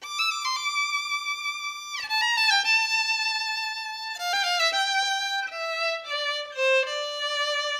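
Intro music: a solo violin plays a melody one note at a time, with a slide down in pitch about two seconds in.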